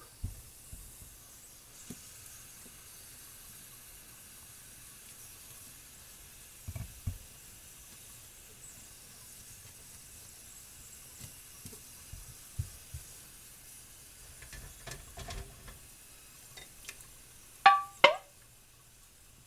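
Hot glass pint jars of just-processed gravy lifted out of a pressure canner with a metal jar lifter and set down on a towel: a few soft knocks, then two sharp, ringing clinks of metal on glass close together near the end. A faint steady sizzle runs underneath, from jars hot and still boiling inside after processing.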